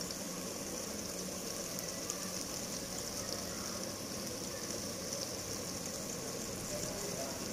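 Onions, tomato and chopped green chilies frying in hot oil in a pan, a steady hiss-like sizzle, with a faint low steady hum underneath.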